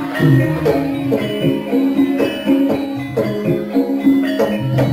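Javanese gamelan ensemble playing dance music: many pitched notes struck in a steady, repeating pattern.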